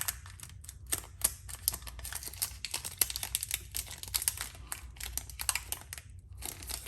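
Foil booster pack wrapper crinkling and crackling in the hands as it is opened, in a dense run of small sharp crackles that pauses briefly near the end.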